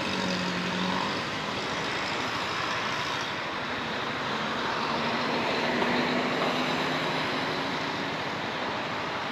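Honda ADV 350 scooter's single-cylinder engine running under way, under a steady rush of wind and road noise. The engine note climbs a little about halfway through as it speeds up.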